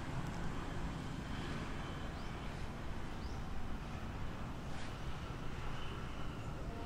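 Outdoor ambience: a steady low rumble of wind on the microphone, rising and falling a little, with a few faint short high chirps.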